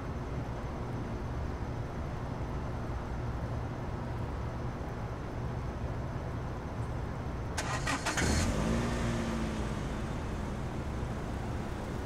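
A car engine starting about two-thirds of the way in: a short clatter as it cranks and catches, then the revs dropping and settling into idle, over a steady low rumble.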